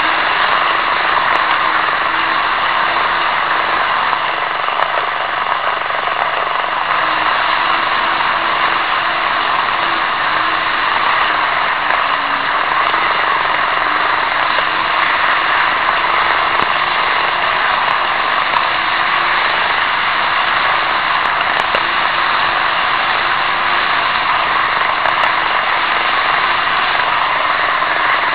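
N-gauge model trains running on track, heard close up from a camera riding on a freight wagon: a steady whir of small wheels rolling on rails, with a faint motor hum that wavers slightly in pitch and a few faint clicks.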